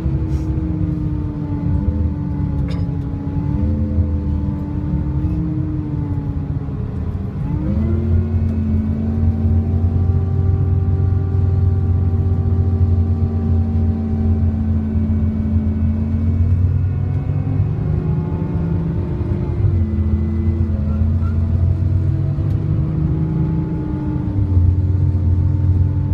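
Scania K380IB bus running with its hydraulic cooling fan making a strange noise: a low drone with steady whining tones on top. The tones rise in pitch about a third of the way in, then drop back about two-thirds of the way through and change again near the end.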